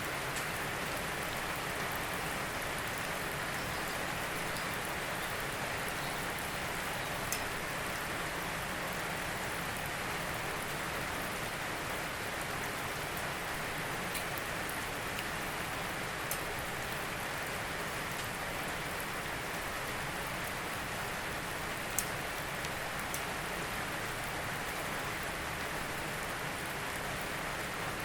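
Steady rain falling, an even hiss with a few louder single drops striking now and then.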